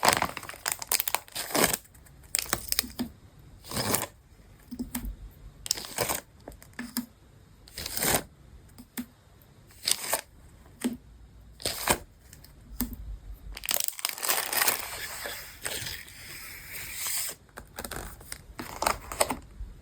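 Packaging and paper being handled and unwrapped: irregular crinkles and short tearing rustles, turning into a longer stretch of steady rustling about three quarters of the way through.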